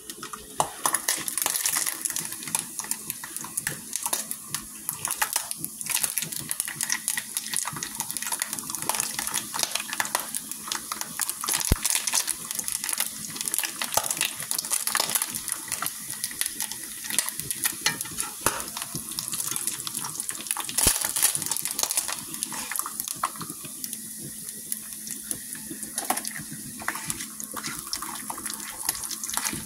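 Turkey bacon sizzling and spattering in hot grease in a skillet: a steady, dense crackle of fine pops with a high hiss.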